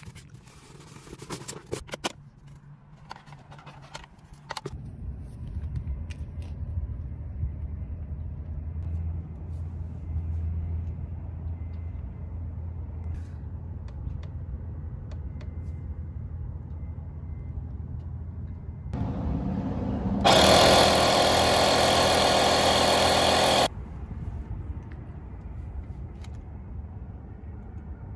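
Clicks and knocks as a cordless tire inflator is handled and switched on, then a steady low hum. About twenty seconds in, its small piston compressor runs loudly for about three seconds with an even buzz, then cuts off suddenly.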